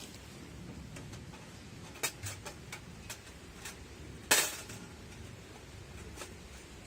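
Metal parts of a flat-pack wood-burning stove clinking and tapping as they are handled and fitted, several light clicks, then one louder clank with a brief ring about four seconds in and a last tap near the end.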